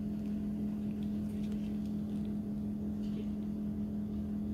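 Steady low electrical hum from a running appliance, with faint crackles as a crisp, cheese-filled crepe is torn in half by hand.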